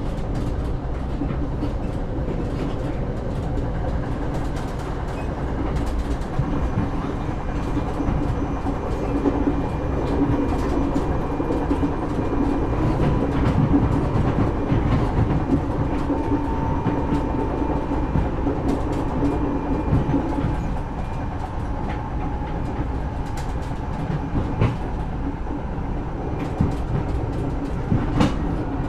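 Passenger train running on the tracks, heard from inside a carriage: a steady rumble with the wheels clicking over rail joints. A faint high tone swells and fades through the middle.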